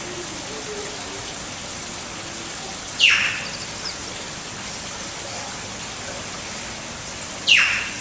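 Two loud, shrill animal calls about four and a half seconds apart, each a quick downward sweep, over a steady rushing hiss like running water.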